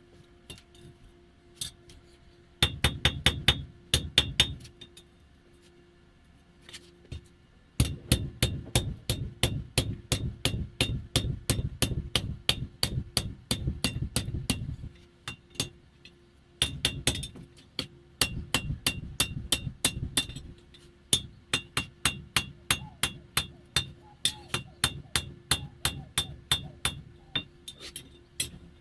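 Hand hammer striking hot spring steel on an anvil with sharp ringing blows, folding the bar over and squaring it up. The blows come in three long runs of quick, even strikes with short pauses between them, and a few single taps before the first run.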